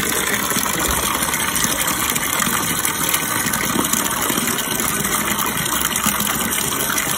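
Water running steadily from a tap or hose, an even rushing noise.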